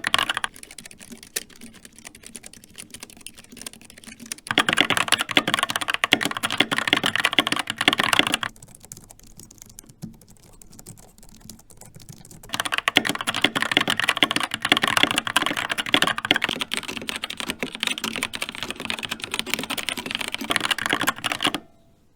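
Fast typing on a Skyloong GK61 mechanical keyboard with brown tactile switches: a dense, continuous run of key clicks. The typing comes in loud stretches that alternate twice with much quieter ones, and it stops just before the end.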